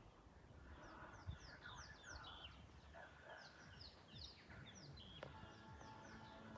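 Faint birds chirping: many short, quickly falling notes in close succession, over a low background rumble.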